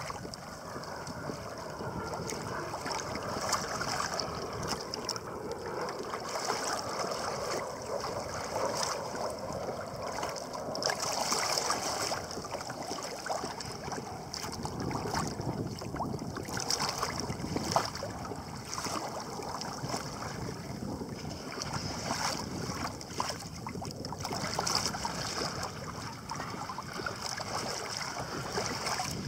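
Sea water splashing and lapping against a kayak's bow, with many small irregular splashes over a steady rush of water, and wind on the microphone.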